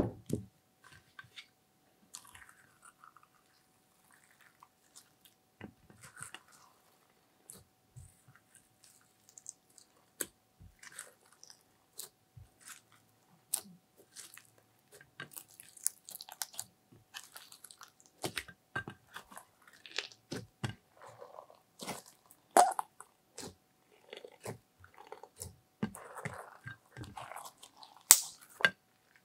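Slime being squished, folded and kneaded by hand in a glass baking dish, with glitter, sequins and crushed eyeshadow mixed in. It makes short, wet, sticky clicks and pops, sparse at first and coming thicker from about halfway through.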